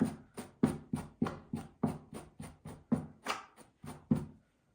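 A comb drawn repeatedly through a piece of craft hair, quick regular strokes about three a second, stopping near the end.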